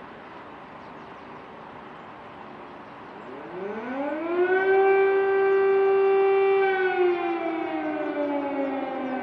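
Civil-defence air raid siren wailing: faint at first, it rises in pitch about three seconds in, holds one loud steady tone for a couple of seconds, then slowly falls away.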